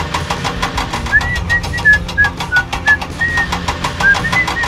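Toy crane winch working: a rapid, even mechanical clicking, about seven clicks a second. From about a second in, a string of short high notes at changing pitch runs over it.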